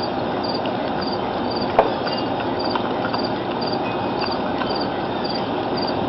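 An insect chirping steadily in short triplets, about two chirps a second, over a constant outdoor hiss, with one sharp click a little under two seconds in.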